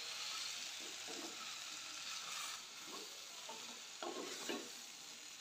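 Chopped vegetables sizzling faintly in oil and masala in an earthenware pot while a wooden-handled spatula stirs them, with a few light scrapes against the pot about four seconds in.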